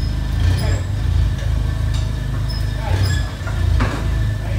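Forklift engine running steadily with a low hum, with a short metal knock near the end.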